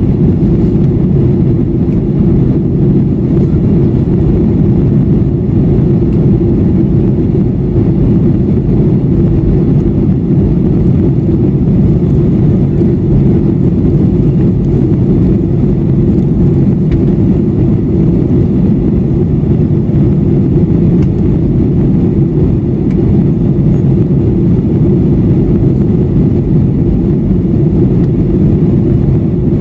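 Steady cabin noise of a jet airliner in flight, heard from a window seat over the wing: an even, loud, low rumble of engines and airflow with no change.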